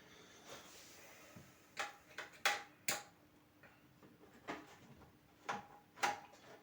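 Scattered sharp clicks and light knocks with a faint metallic ring, from a screwdriver and hands working at a desktop PC case to unscrew the power supply.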